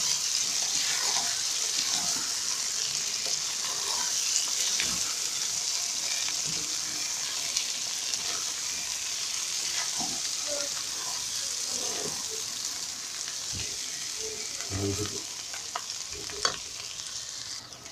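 Cooked beans with onions frying in oil in a pot, sizzling steadily, while a wooden spoon stirs them with soft scrapes and knocks against the pot.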